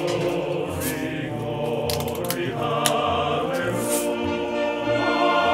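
A national anthem sung by a choir, as background music. A few sharp ticks cut through it about two and four seconds in, BB gun shots hitting aluminium cans.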